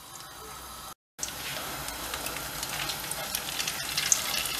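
Egg-dipped bread slices sizzling and crackling in hot oil in a frying pan, with a short break in the sound about a second in.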